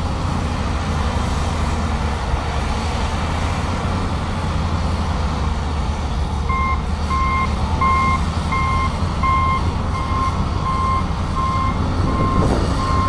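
Loader-mounted Larue D50 snow blower and the heavy engines of the loader and truck, a steady low rumble. About halfway through, a backup alarm starts beeping, about three beeps every two seconds.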